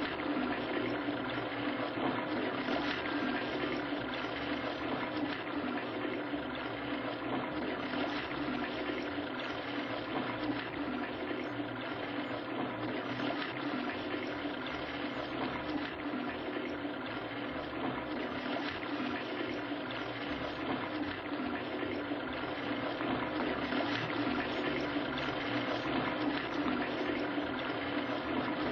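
Toilet cistern flushing and running on without stopping, a steady rush of water that never cuts off.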